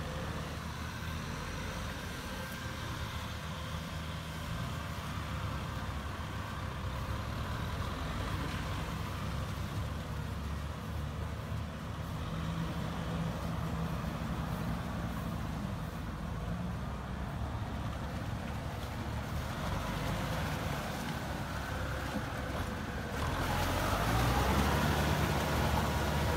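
Kubota farm tractors' diesel engines running steadily under load, pulling rotary tillers through a flooded rice paddy. The sound gets louder and rougher near the end as one tractor works close by.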